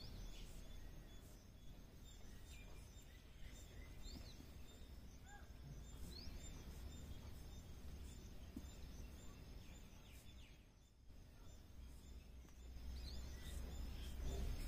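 Quiet outdoor ambience: a steady low rumble with a few faint, short bird chirps now and then.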